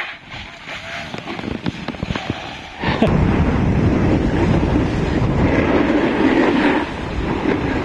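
Wind rushing over the microphone and a snowboard scraping across snow as the rider and filmer slide downhill, with scattered crackles at first; about three seconds in the noise jumps abruptly louder and stays a dense, steady rumble.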